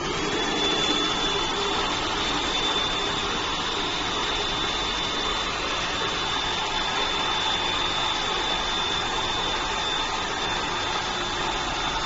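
New Magic cold spark machine running in its clean-out mode, blowing out the leftover powder as a jet of sparks: a steady rushing hiss with a thin high whine over it.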